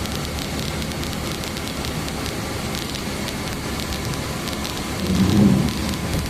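Steady rain and road noise inside a car's cabin, with many small scattered ticks of raindrops. About five seconds in, a brief, louder low sound.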